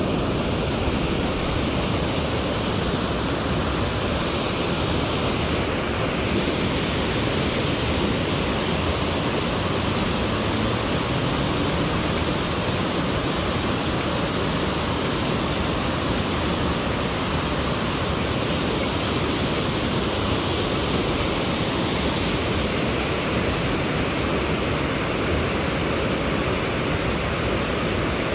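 Steady rush of river water pouring over a low stepped concrete weir.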